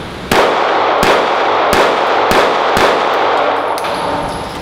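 A handgun fired five times in steady succession, about one shot every two-thirds of a second, each crack followed by heavy reverberation from the enclosed indoor range.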